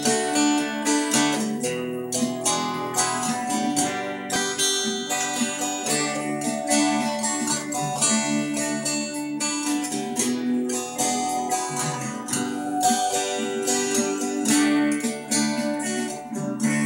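Acoustic guitar strummed steadily, playing a song's instrumental intro.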